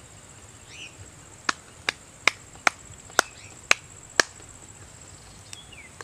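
A series of seven sharp knocks, about two a second, over a steady high insect whine, with a few short bird chirps.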